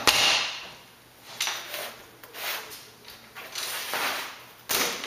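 A thin floor sheet being handled on a workbench and laid onto a tubular trailer frame: a click at the start, several short scraping swishes as the sheet slides, and a sharp knock near the end as it meets the frame.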